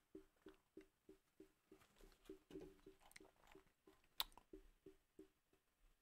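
Faint playback of a recorded MIDI pattern: short notes repeating evenly about three times a second, with a single sharp click about four seconds in.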